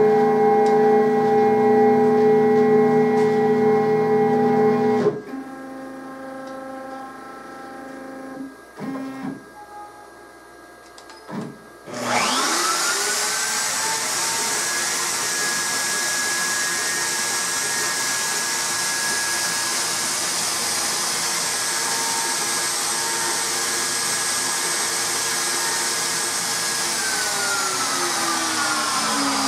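A CNC router's stepper motors whining steadily as the gantry moves, then quieter stop-and-start moves. About twelve seconds in, the router spindle spins up with a quick rising whine and runs at a steady high speed, its pitch starting to fall near the end.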